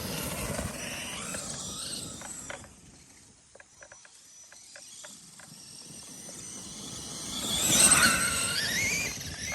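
Traxxas E-Revo RC truck running: the whine of its electric motor and drivetrain rises and falls with the throttle, mixed with tyre and ground noise. It fades away about three seconds in, with a few scattered ticks, then comes back and is loudest about eight seconds in.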